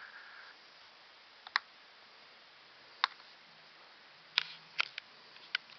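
A handful of short, sharp clicks, about six at uneven intervals, over a faint steady hiss.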